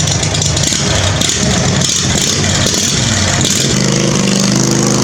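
Husqvarna zero-turn mower's Briggs & Stratton V-twin running loud through a custom exhaust, engine speed rising and falling, then settling to a steadier note near the end.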